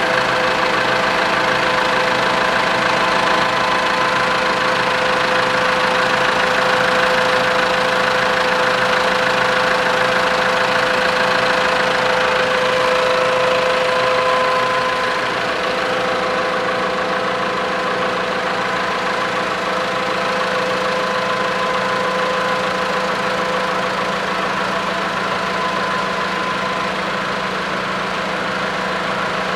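Side-valve engine of a 1928 Graham-Paige 614, its cylinder head off, being turned over by a bolted-on hydraulic motor. A steady whine from the hydraulic drive sits over a fast, even mechanical beat from the turning engine, a little quieter after about fifteen seconds.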